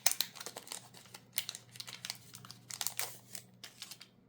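Foil wrapper of a Pokémon trading card booster pack crinkling and tearing as it is opened: irregular crackles and rustles that stop shortly before the end.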